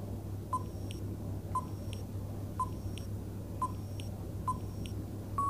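Countdown timer sound effect: five short, high beeps about a second apart. Near the end a longer, steady beep begins, marking the end of the countdown.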